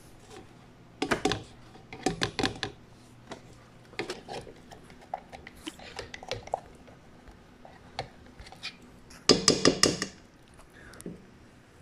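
Clinks and knocks of utensils and containers against a stainless steel stand-mixer bowl, in short clusters about one and two seconds in, with the loudest rapid series about nine to ten seconds in as a spatula works in the bowl.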